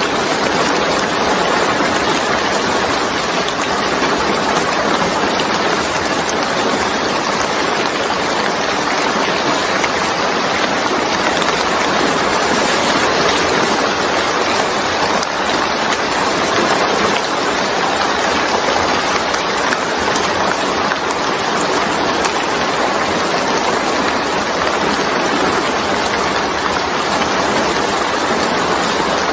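Steady heavy rainfall: an even, unbroken hiss of rain falling.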